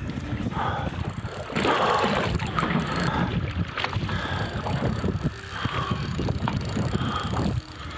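Wind buffeting the microphone on a small boat, with water sloshing and slapping around the hull and scattered irregular knocks and clicks.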